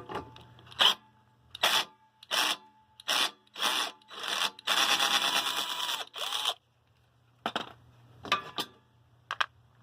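Parts of a box fan being handled and worked on by hand: a run of short scrapes and rubs, a longer scrape lasting about two seconds midway, then a few light clicks near the end.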